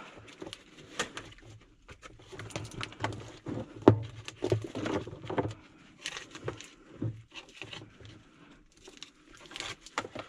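Irregular handling noise as a float switch and its cord are fed through and pulled out of a sewer ejector pump basin: scattered scrapes, rustles and light knocks, with one sharp knock about four seconds in.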